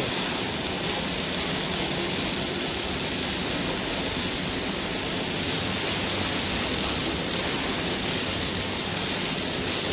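Steady machine running noise: an even hiss with a low hum, unchanging throughout.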